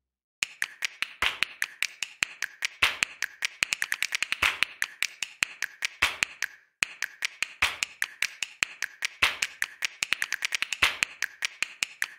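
A rapid, irregular run of sharp clicking taps, several a second, pausing for about a second roughly seven seconds in.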